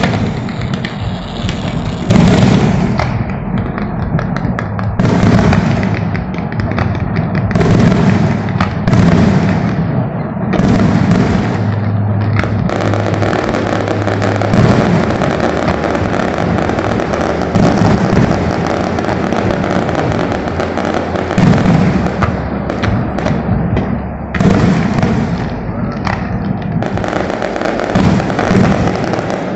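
Fireworks display going off continuously: overlapping bangs and crackling bursts, with sharper loud reports every second or few.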